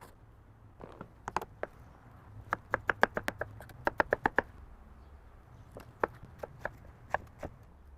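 A series of sharp taps and knocks of hard objects on a hard surface, like kitchen items being handled. A few come early, then a quick even run of about five a second for a couple of seconds, then scattered ones near the end.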